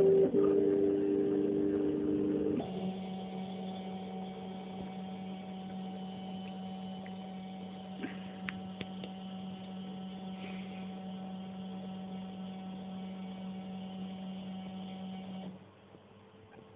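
Craftbot Plus 3D printer's stepper motors whining in several steady pitches as the print head travels. About two and a half seconds in this gives way to a quieter steady hum with a few light clicks, which cuts off shortly before the end.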